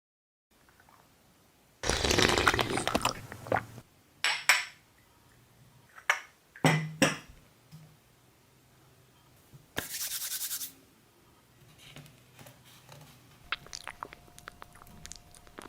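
Close-miked rubbing and scratching handling sounds in several short bursts, with a few sharp clicks and light clinks, as food and utensils are handled before eating.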